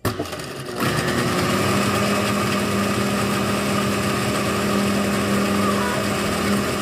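Blender switched on at its liquify setting, starting suddenly and then running steadily at high speed; the motor gets louder and settles into a steady hum about a second in.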